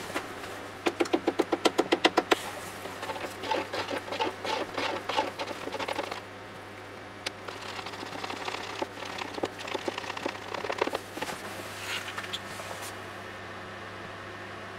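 A wooden stir stick mixing epoxy resin in a plastic measuring jug, knocking and scraping against the jug's sides in quick runs of clicks, loudest in the first couple of seconds.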